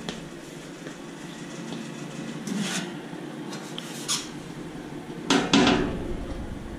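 Cooling fan of a three-phase MIG welder running steadily, the welder just switched on with only its fan going. Over it come a few metallic clunks and rattles, the loudest a double clatter about five seconds in.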